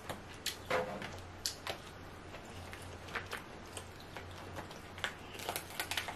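Irregular soft clicks, cracks and squishy sounds of a seafood boil being eaten by hand: crawfish and king crab shells being pulled apart and the meat chewed.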